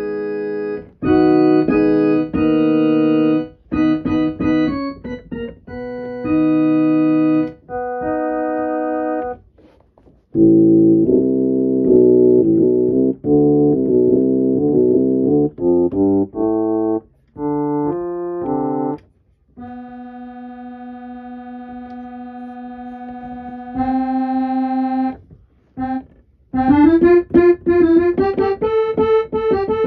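Electronic keyboard being played: several held chords that cut off sharply, then a quick run of notes, then a long, quieter held note, and near the end notes that slide upward in pitch.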